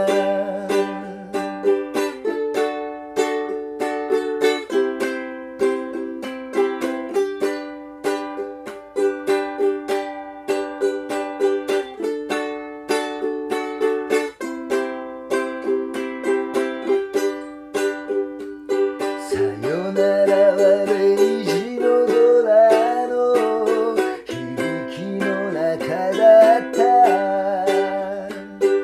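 Ukulele strummed in a steady rhythm of chords, an instrumental passage with no voice. About two-thirds of the way through, a voice comes in singing the melody over the strumming.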